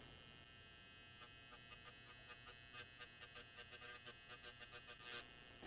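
Faint steady whine of a battery-operated grinding pen's small motor, with light irregular scratching ticks as its tip grinds the solder mask off a corroded circuit-board trace to expose the copper.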